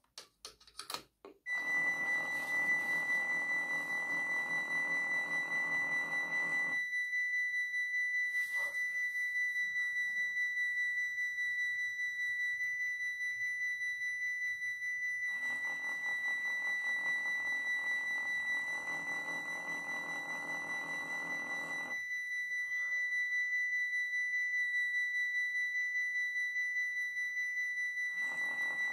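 Model Dutch level crossing's warning signal sounding as a steady high-pitched electronic tone. A lower, fuller hum joins it three times: from about a second and a half to seven seconds, again from about fifteen to twenty-two seconds, and near the end. A few clicks come just before the tone starts.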